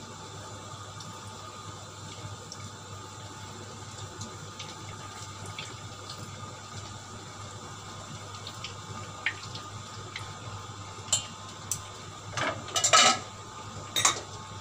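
Dishes and utensils clattering against ceramic bowls as they are handled, a few sharp knocks near the end with the loudest about three-quarters of the way through. Under it, a steady kitchen hum and hiss.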